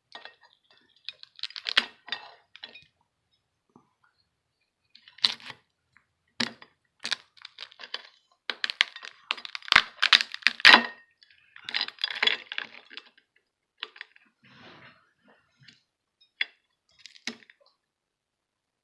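Shell of a steamed whole crab being cracked and pulled apart by hand: irregular sharp cracks and clicks, coming thickest a little past halfway through.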